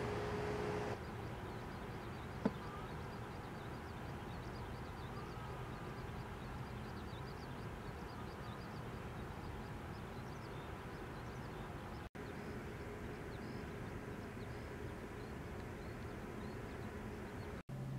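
Steady outdoor background hiss with faint, short high chirps scattered through it and a single sharp click about two and a half seconds in. The sound drops out for an instant twice at edit cuts.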